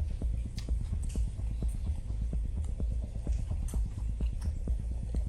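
Close-miked chewing of a thick loaded sub sandwich: a steady run of mouth clicks and smacks, about three a second, over a low rumble.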